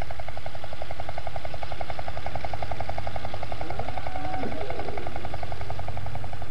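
Engine of haymaking machinery running steadily, with a fast, even beat of about ten pulses a second.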